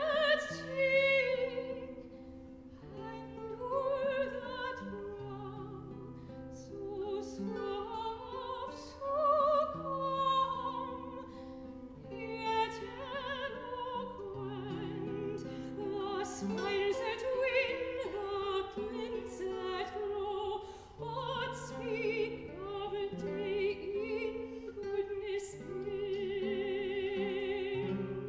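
Soprano singing a classical art song with wide vibrato, accompanied by a baroque guitar.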